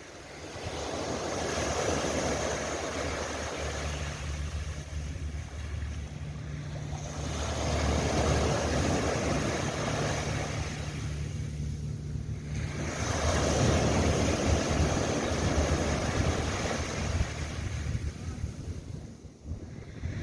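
Waves breaking and washing up a sandy beach, three swells that rise and fall about six seconds apart, over a steady low rumble.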